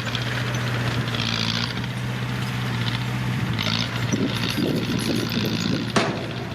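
Old Komatsu D20P bulldozer's diesel engine running steadily with an even low hum, a few short bursts of hiss over it, and a single sharp clank near the end.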